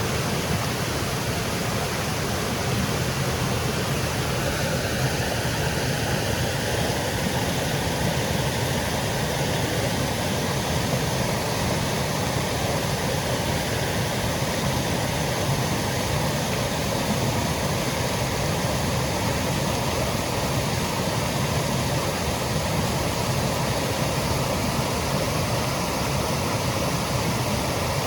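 Small woodland waterfall: water cascading over rocks in a steady, even rush.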